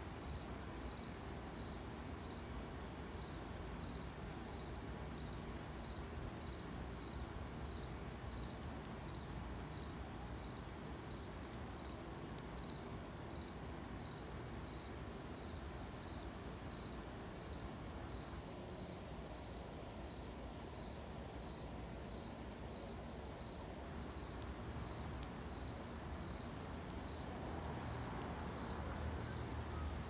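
Crickets chirping in an even, unbroken rhythm, with a fainter steady insect trill above them. Beneath this, a wood campfire burns with a low hiss and a few faint crackles.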